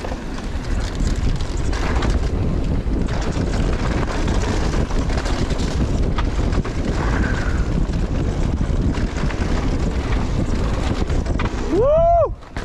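Wind buffeting the microphone of a mountain bike riding fast down a downhill trail, a steady rushing rumble. Near the end a brief tone rises and falls in pitch.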